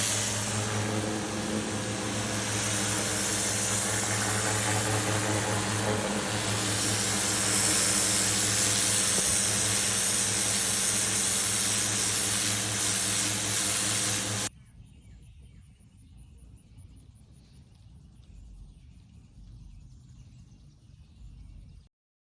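Pressure washer running with a steady motor hum under a broad hiss of spray, until it cuts off suddenly about two-thirds of the way in. Then only faint background noise.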